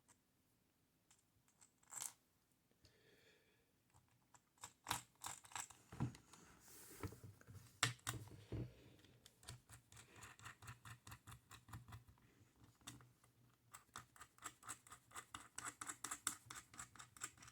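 Faint clicks and scrapes of small metal hardware, a washer, nut and bolt, being fitted through a bent lock hole in a metal typewriter bottom plate. A few scattered clicks at first, then a quick, fairly even run of light clicks through the second half.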